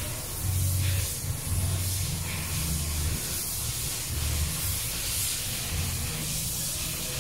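Wind buffeting the microphone in uneven low rumbles, over a steady high hiss.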